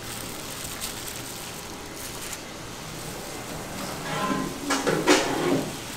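Gloved hands mixing and squishing mayonnaise-dressed macaroni salad in a stainless steel bowl, a soft wet mixing sound with a few faint clicks. About four seconds in, a person's voice comes in and is the loudest sound.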